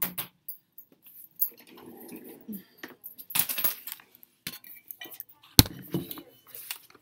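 Clinks and clatter of small hard objects handled in a room, with a sharp knock about five and a half seconds in, the loudest sound.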